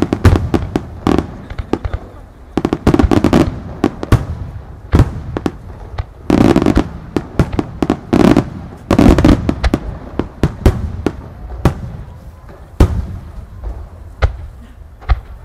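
Aerial firework shells bursting, sharp bangs coming in clusters every second or two, each followed by a low rumbling echo.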